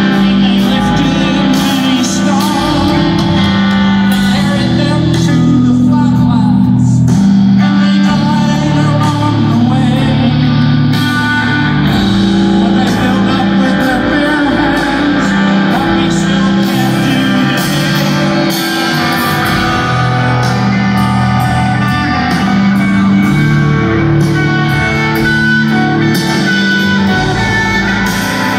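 Rock band playing live, heard from the audience: electric guitars over bass and drums.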